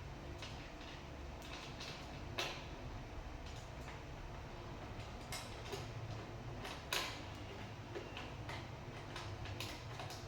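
Scattered light clicks and knocks of metal parts and tools being handled while assembling furniture, the sharpest about two and a half and seven seconds in, over a low steady hum.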